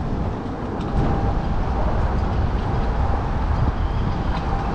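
Wind buffeting the action camera's microphone: a steady low rumble with a hiss above it, growing stronger about a second in.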